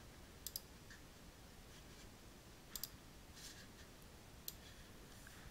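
A few faint computer mouse clicks over near-silent room tone.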